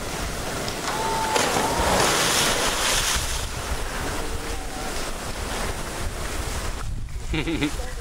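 Wind buffeting the microphone, with a swell of splashing water in the polar bear's pool from about a second in that fades after about two seconds. A short voice is heard near the end.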